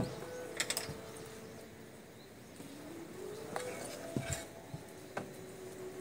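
Scattered clicks and knocks of a Makita table saw's fence and lock lever being handled and set while the saw is switched off, a few sharp strikes over about six seconds.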